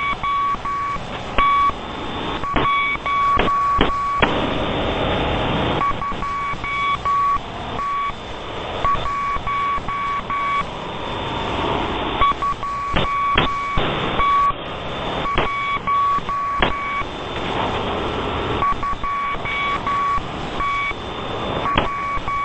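A single high electronic beep tone that keeps breaking off and coming back in uneven stretches, over a steady hiss of static with sharp clicks.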